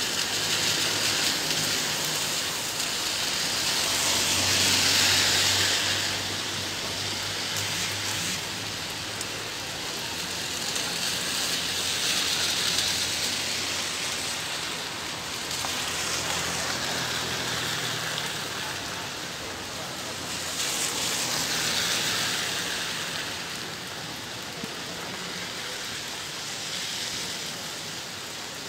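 Heavy rain pouring down in a continuous hiss that swells louder and eases back several times, with a faint low hum underneath through the first half.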